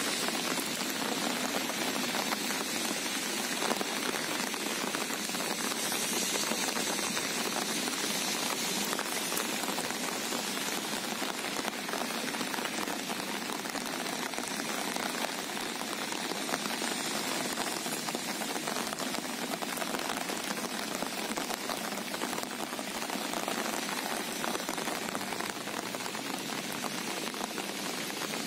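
Steady rain falling on calm sea water: an even hiss of countless small drops.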